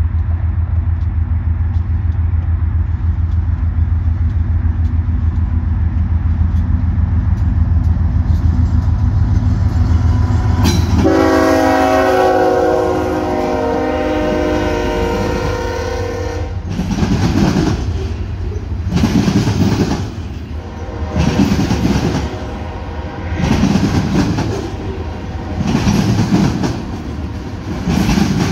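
BNSF freight train: a steady low rumble as the diesel locomotives approach, then one horn blast of several tones at once, lasting about five seconds as the locomotive passes. After it, covered hopper cars roll by with a rhythmic clack of wheels, about one beat every two seconds.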